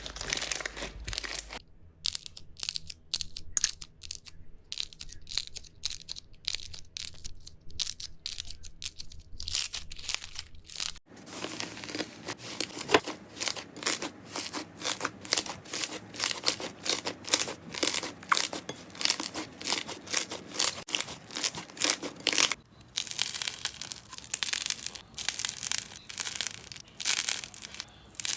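Slime being squished and pressed by hand close to the microphone, giving dense crackling and popping clicks. The texture changes abruptly three times as one clip gives way to the next.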